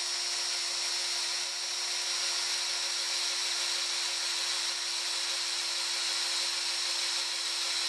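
Power drill running steadily under load as a combined drill-and-tap bit cuts an M6 hole into tough 3.5 mm steel, a constant hum with a high whine from the cutting.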